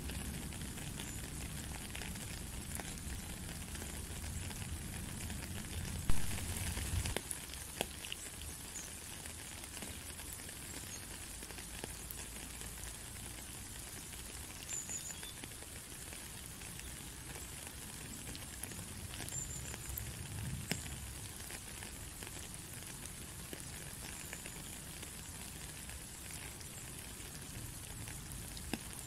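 Steady rain falling on a puddle, a dense hiss of fine drop ticks, with a low rumble beneath it that dies away about seven seconds in. One sharp knock about six seconds in is the loudest sound.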